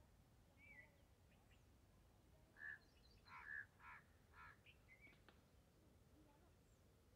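Near silence outdoors, broken in the middle by a faint run of about five short, harsh bird calls close together.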